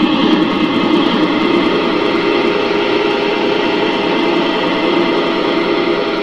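Many overlaid copies of a Yamaha PSR-E233 keyboard sound effect blended into one loud, steady wall of sound: a dense hiss with many held tones in it, strongest low in the middle.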